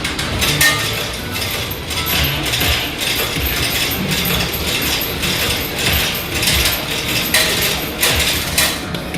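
Poker machine sound effects: a busy run of rapid clicking and rattling, typical of the reels spinning or credits ticking up.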